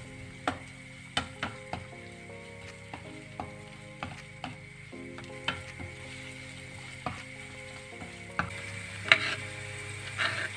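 A utensil clicking and scraping against a pan as food is stirred, with frying sizzle swelling near the end.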